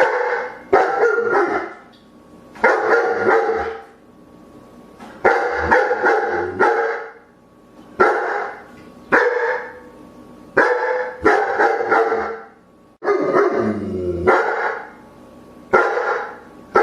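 A dog barking loudly in repeated bursts of two or three quick barks, with a new burst every couple of seconds.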